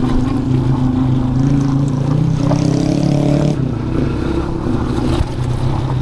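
Aveta Ranger dual-sport motorcycle engine running while being ridden. The engine note climbs for about a second and a half as the revs rise, then drops suddenly about three and a half seconds in.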